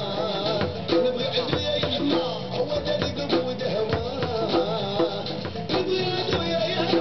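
Live drumming: drums beating a quick, busy rhythm with rattling percussion, and a wavering sung melody over it.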